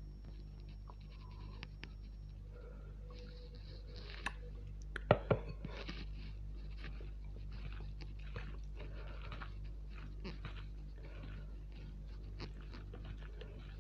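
Close-up chewing and crunching of a mouthful of mutton curry and rice, in many short wet strokes, with a few sharp clicks, the loudest about five seconds in. A steady low hum runs underneath.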